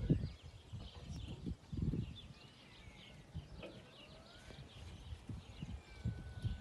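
Small birds chirping and whistling, over irregular low thumps and rumble that are loudest at the start and again about two seconds in.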